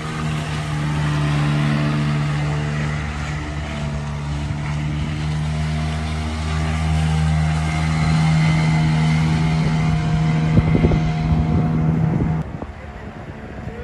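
Yamaha 5 hp outboard motor running steadily at speed as a small boat planes past, with water splashing. The engine note stops abruptly near the end.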